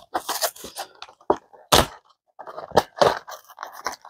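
Small cardboard figure box being opened by hand: irregular rustles and scrapes of cardboard and packaging, with a few sharper knocks.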